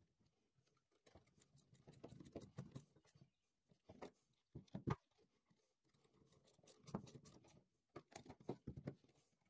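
Faint clicks and light knocks of hand tools working the wheel bolts on a Workbee Z1+ CNC carriage plate: a screwdriver turning against a second tool that holds the other end, with the tools handled and set down on a cutting mat. The sharpest knocks come about halfway through, with a few more in the last few seconds.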